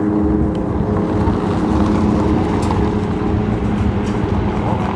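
A formation of helicopters flying low overhead: steady, loud rotor and turbine engine noise with a low rumble and a few steady tones.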